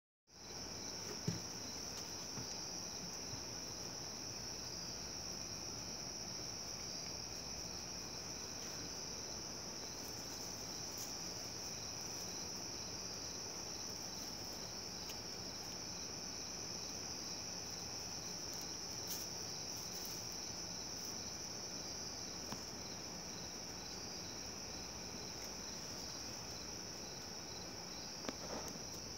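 Crickets chirping in the dark: one unbroken high-pitched trill, with a second, lower insect pulsing at a steady even rate beneath it. A sharp tap sounds about a second in, with a few fainter taps later.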